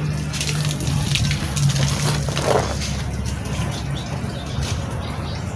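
Steady rush of running water, as from a hose while a car is being washed, over a low steady hum.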